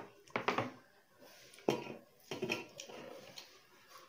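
Close eating sounds: wet chewing and lip-smacking of goat meat and finger-millet dhindo, with several sharp smacks in the first three seconds.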